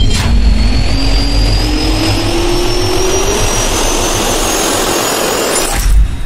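Jet-engine turbine spool-up sound effect: a rising whine over dense rushing noise and a low rumble. There is a sharp hit just after the start and another near the end.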